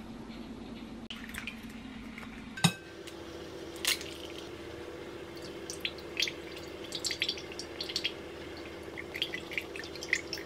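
Milk poured from a carton in a thin stream into a glass bowl over two raw eggs, with many small irregular splashes and drips, over a steady low hum. A sharp click sounds about a quarter of the way in.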